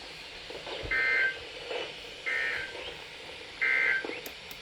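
NOAA Weather Radio SAME end-of-message data bursts: three short, identical buzzy digital bursts about a second and a half apart, played through a weather radio's speaker. They signal the end of a Required Weekly Test broadcast.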